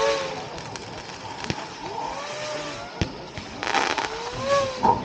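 A multi-shot consumer fireworks cake (Hornet's Swarm, 19 shots) firing. Sharp launch thumps mix with several rising whistles and bursts of crackling.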